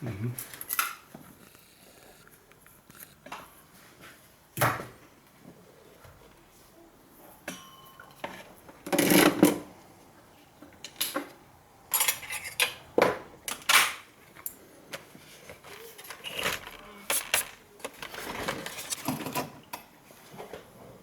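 Irregular clicks, knocks and clatter of small hard objects being handled, with a longer rattling scrape about nine seconds in.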